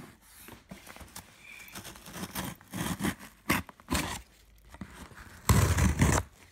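Scissors scraping and cutting along packing tape on a cardboard box, with scattered scrapes and taps. A loud rough rustle of under a second comes near the end.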